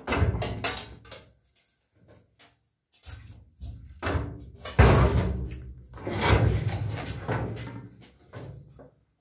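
Heavy welded-steel cabinet of a homemade circular metal saw being shifted and heaved upright by hand: irregular metal knocks, scrapes and clunks, the loudest clunk about five seconds in.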